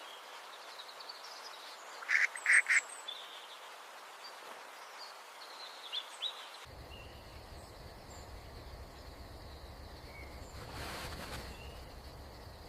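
Faint outdoor ambience with a bird giving a quick run of four short calls about two seconds in, then a few faint chirps. A low steady rumble comes in about two-thirds of the way through.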